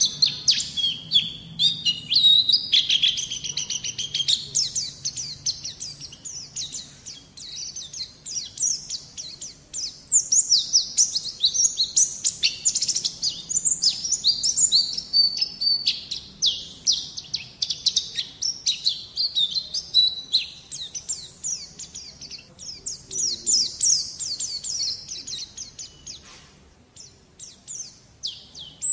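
Pleci (white-eye) song played as a tutor recording for a young bird: rapid, high-pitched twittering chatter of quick rising and falling notes, almost unbroken, with a short lull near the end.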